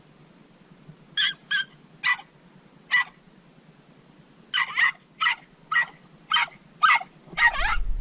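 Jack Russell terrier giving about ten short, sharp, high-pitched barks: four spaced out, then after a pause a quicker run of six. A low rumble comes in near the end.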